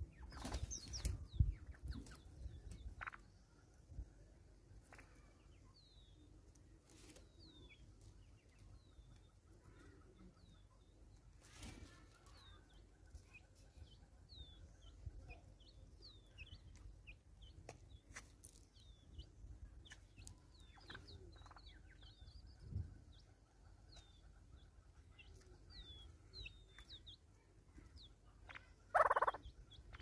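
Birds at a seed feeder: scattered sharp taps and scratches, with a steady run of faint, high, falling chirps from small birds through the second half, and a short louder sound near the end.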